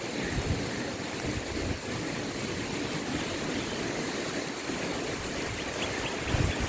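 Steady rushing noise of wind in coconut palms and splashing water, with a low, fluttering rumble underneath.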